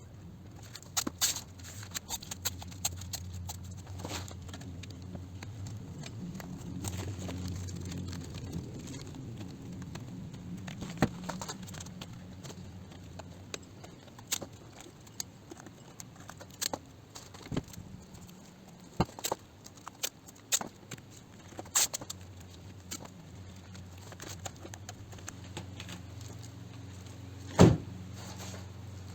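Masking tape being pulled off the roll and torn while the car is masked for paint: irregular sharp crackles and snaps, the loudest a little before the end, over a steady low hum.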